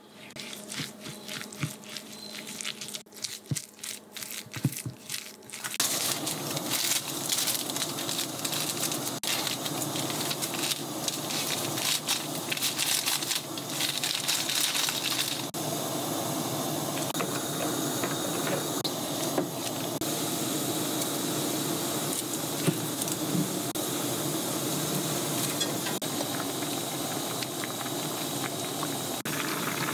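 A wooden spoon stirs a thick chili-paste seasoning in a bowl, giving soft squishy clicks. After about six seconds, broth in a pan on a gas burner takes over, bubbling and hissing steadily.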